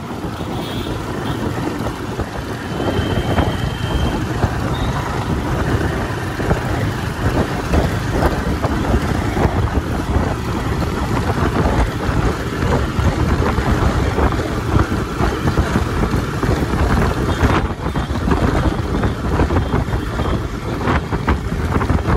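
Wind buffeting the microphone on a moving TVS motorcycle, a loud, unsteady rush, with the bike's engine running beneath it.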